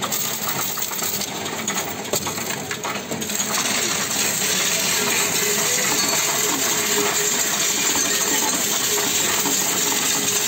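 Coinstar coin-counting machine taking in a large pour of copper 1-, 2- and 5-cent euro coins: a dense, continuous jangle of coins clattering in the tray and running through the counter. It is more broken for the first three and a half seconds, then settles into a steadier rattle.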